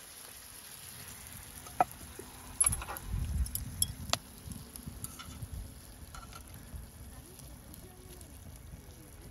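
A steel skillet of beef-tendon stew being handled: a few sharp clinks and knocks between about two and four seconds in as the pan is set down and metal chopsticks go into it, over a faint sizzle from the hot stew.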